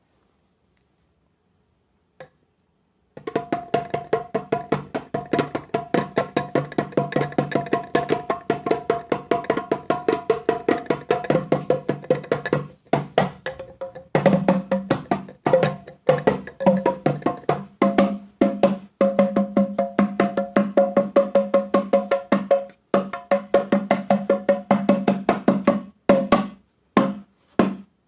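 African hand drums struck with bare hands in a fast, steady rhythm of sharp ringing strikes. The playing starts about three seconds in after a single tap, breaks off briefly in the middle, and ends in a few scattered strikes.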